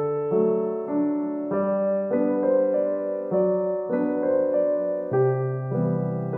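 Background piano music, a new note or chord struck about every half second to a second.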